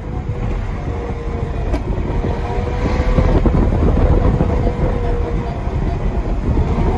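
Lamborghini Gallardo Superleggera's V10 with a straight-through aftermarket exhaust, holding a steady engine speed at highway cruise under heavy road and wind rumble. It grows louder about three seconds in.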